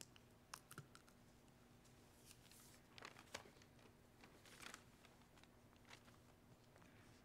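Near silence in a quiet room: a scattering of faint small clicks and soft rustles, a little busier around the middle, over a faint steady low hum.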